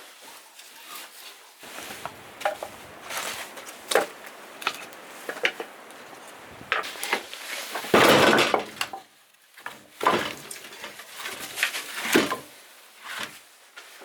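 Irregular knocks, clinks and scrapes of objects being handled in a small room, with a louder, longer scraping clatter about eight seconds in.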